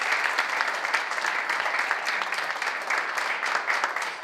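Audience applauding steadily: many hands clapping at once in a dense, continuous patter.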